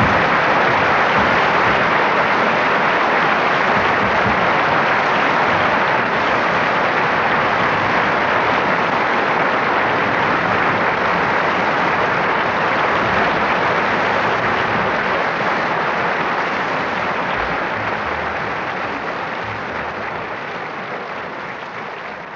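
Audience applauding steadily, fading out over the last few seconds.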